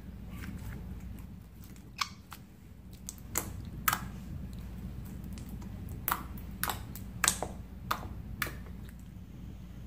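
Slime being handled, giving a scattering of short sharp clicks and pops, about nine in all, over a steady low background hum.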